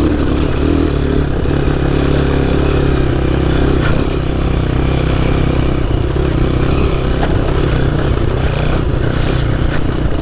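Honda C90's small single-cylinder four-stroke engine running steadily under way as the bike is ridden.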